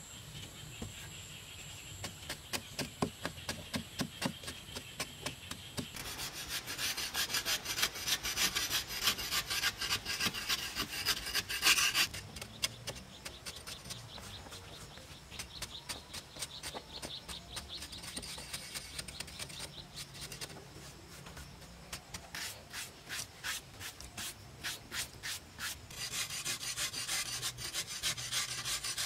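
Metal blades scraping and shaving a hardened earthen clay surface: quick repeated scraping strokes in several runs that change abruptly, the densest and loudest in the middle.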